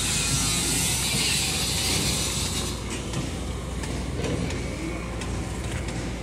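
JCB backhoe loader's engine running as its hydraulic digging arm works, with mechanical clicking and clanking. A loud hiss fills the first few seconds and stops about three seconds in.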